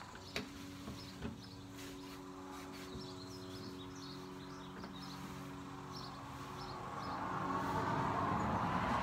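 A motor vehicle passing, its noise swelling over the last few seconds over a steady low hum. Early on there are a couple of light knocks as wooden dresser drawers are handled.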